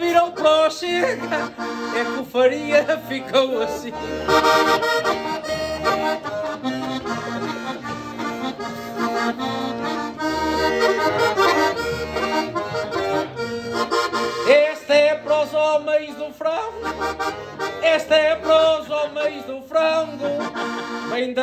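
Portuguese concertina (button accordion) playing an instrumental interlude of a desgarrada: a lively melody with chords over a steady, repeating bass beat.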